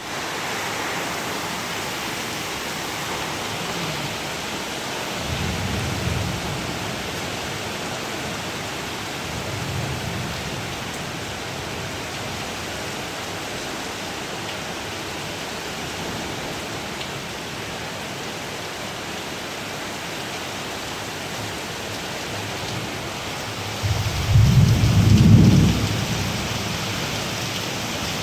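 Heavy rain pouring down steadily, with a few low rumbles along the way; the loudest comes near the end and lasts about two seconds.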